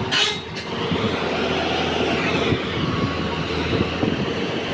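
JCB 205 crawler excavator's diesel engine running steadily under load, with a short hiss just after the start.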